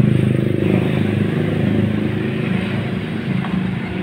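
An engine running steadily with a low-pitched hum, loudest at the start and easing slightly after about a second.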